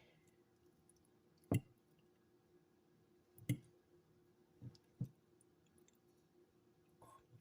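A few separate sharp clicks and knocks of tableware, as of a fork or dish against a plate, the loudest about one and a half seconds in, over a faint steady hum.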